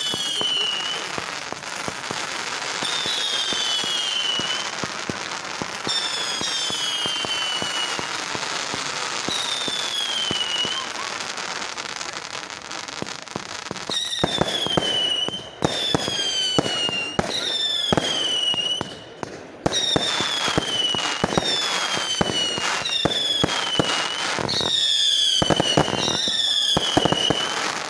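Fireworks going off: shot after shot whistles with a pitch that falls, over steady crackling. About halfway through, the shots come faster, roughly one a second, each with sharp bangs.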